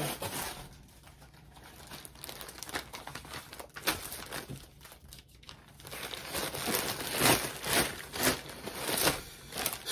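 Plastic packaging crinkling as items are handled and put into a white poly mailer shipping bag; the crinkling grows louder about six seconds in, with sharp crackles.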